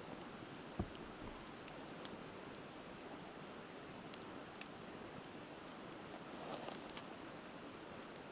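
Wood fire crackling with sparse small pops over the steady rush of a river. One louder low thump comes a little under a second in.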